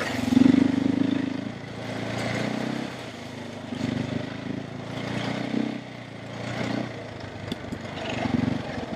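KTM 450 EXC enduro motorcycle's single-cylinder four-stroke engine running under way, its revs rising and falling in a series of throttle swells, loudest at the start.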